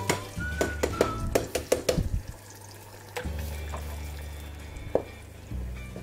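Background music with a beat, over liquid pouring as a blended purée is tipped from a blender jug into a pot. A single knock near five seconds in.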